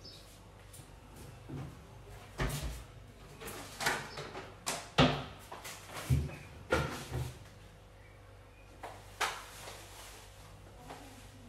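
Knocks, thumps and rustles of laundry being loaded into a top-loading washing machine: a blanket pushed into the drum and a bag of washing powder handled. The loudest knock comes about five seconds in, with a last one around nine seconds.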